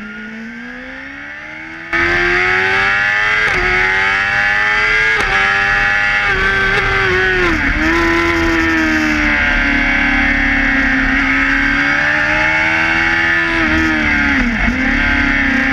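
Racing car engine heard from an in-car onboard microphone, at hard throttle on track: the revs climb and drop sharply with upshifts, then dip and rise again through downshifts for corners around the middle and near the end. The sound becomes suddenly louder about two seconds in.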